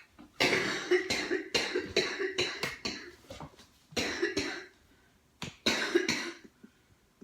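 Woman with cystic fibrosis coughing to clear mucus from her lungs: a run of about six coughs, then two shorter bouts a second or so apart.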